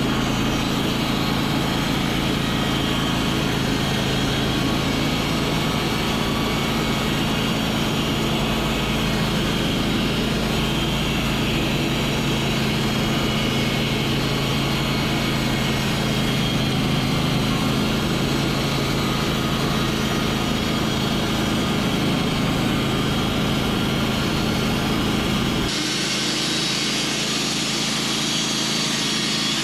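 Sawmill engine running steadily at a constant speed, as during a cut. The sound changes abruptly about 26 seconds in.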